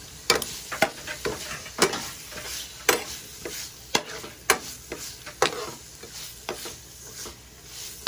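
Metal spoon stirring ground beef and diced vegetables in a frying pan, scraping and tapping against the pan in irregular strokes about once or twice a second, over a steady sizzle of the meat frying.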